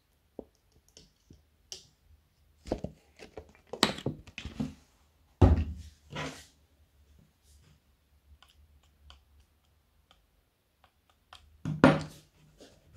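Handling noises from a plastic colouring bottle and a clear plastic cup on a wooden tabletop: scattered clicks and knocks while colouring is squeezed into white glue, with a louder knock about five seconds in. Near the end, a short burst of scraping as a stick starts stirring the glue in the cup.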